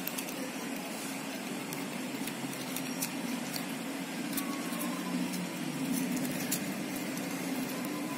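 Steady low machine hum, with a few faint light clicks of small metal parts being handled as nuts are fitted onto the terminal studs of an electric iron's plug connector.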